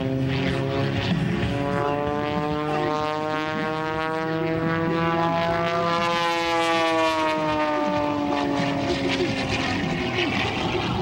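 Pitts S-2S aerobatic biplane's six-cylinder engine and propeller droning overhead. The pitch rises slowly, peaks about six seconds in, then falls away.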